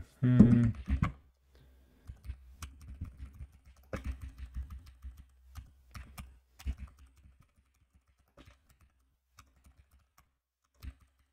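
Computer keyboard typing in irregular runs of keystrokes, thinning out after about seven seconds. A short hummed voice sound comes just at the start.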